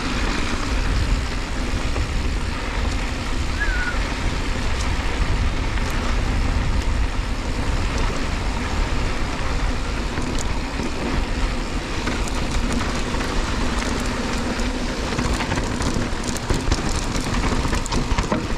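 Mountain bike rolling down a dirt singletrack: the tyres rumble over dirt and small rocks and the bike rattles, with wind buffeting the microphone.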